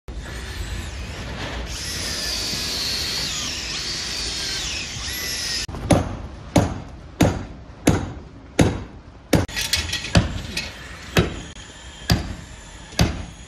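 A cordless drill boring into timber for about six seconds, its high whine wavering, then a hammer striking in a steady rhythm, about three blows every two seconds.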